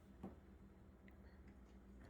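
Near silence: room tone with a faint steady low hum and one small click about a quarter second in.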